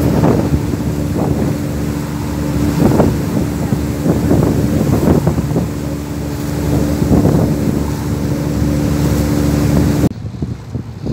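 Boat engine running with a steady humming drone under gusts of wind on the microphone, cutting off abruptly near the end.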